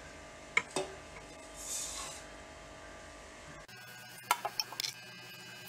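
A stainless steel mixer-grinder jar being handled, with a few sharp metallic clinks, a short soft hiss about two seconds in, and a cluster of light clinks near the end as coarse wheat rava is poured into the jar. The grinder motor is not running.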